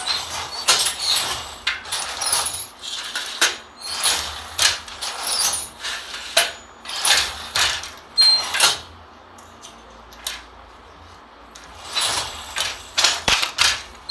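Wooden handloom being worked: repeated clacks, sliding rasps and squeaks of the sley and shuttle in quick irregular bursts, with a lull of about three seconds after the middle before the beating resumes.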